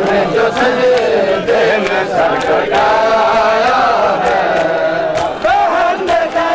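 A crowd of men chanting a Shia mourning lament (noha) together in many overlapping voices, with sharp slaps of hands striking bare chests in matam cutting through the chant.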